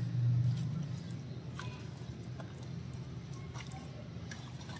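Hands mixing raw chicken pieces with a dry spice rub in a steel bowl: scattered light clicks and knocks of meat and bone against the bowl. Under it runs a low steady hum, loudest in the first half-second.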